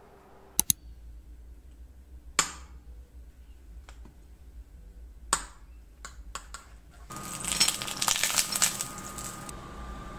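Metal spoon clinking against a white ceramic bowl as a thick cream is spooned in: two sharp clicks near the start, then two ringing clinks a few seconds apart and a few small taps. From about seven seconds in, a quick run of scraping and clicking as the spoon stirs the cream in the bowl, over a steady faint hum.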